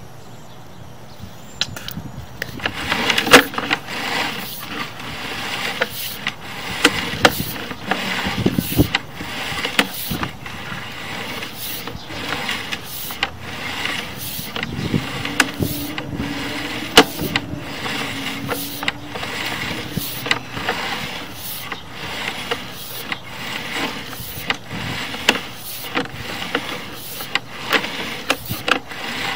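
Sewer inspection camera's push cable being pulled back out of the line and onto its reel, making irregular clicks and rattles over a scraping hiss. It starts about two seconds in.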